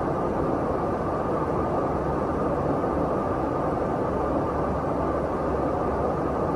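Steady rushing cabin noise inside a KC-135 Stratotanker in flight: engine and airflow noise heard through the fuselage, unchanging throughout.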